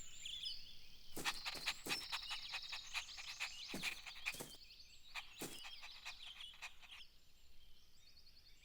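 Faint nature ambience of animal calls, chirping birds and croaking frogs, with a busy stretch of quick chirps and trills in the first half that thins out after about five seconds.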